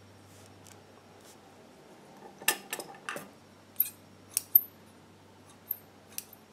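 Light, sharp metallic clicks and taps from fingers handling the needle and presser-foot area of a Singer 241-12 industrial sewing machine while threading it. There are about nine clicks at uneven spacing, starting a couple of seconds in, over a faint steady low hum.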